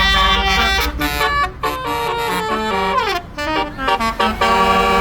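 Bus's Basuri 'telolet' musical air horn playing a quick tune of stepped notes, with one phrase sliding down in pitch about three seconds in.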